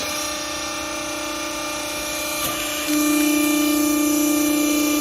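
Hydraulic pump unit of a used-clothes press baler running with a steady whine, which grows louder about three seconds in.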